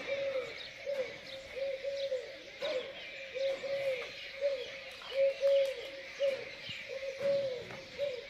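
Doves cooing over and over in short, arched, low notes, often in pairs, with small birds chirping and twittering higher up.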